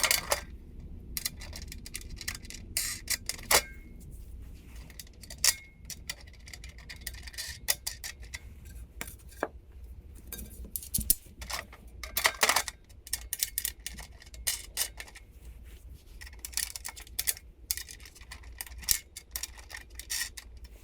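Irregular clinks, taps and rattles of hardware being handled during assembly: half-inch bolts pushed through the side pieces and trays and wing nuts threaded on, with scattered sharper knocks of parts meeting.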